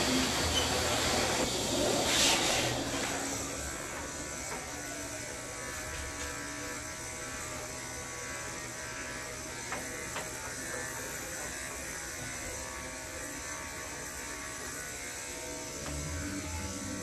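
Corded electric dog clippers with a #4 blade running steadily as they cut through a Labradoodle's curly coat. A brief louder rush of noise comes about two seconds in.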